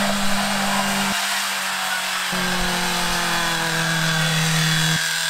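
Engine of a home-built off-road buggy running hard at high revs under load as it climbs a muddy slope, a steady drone over heavy mechanical noise. The low drone breaks off abruptly about a second in and returns about a second later, then breaks off again near the end.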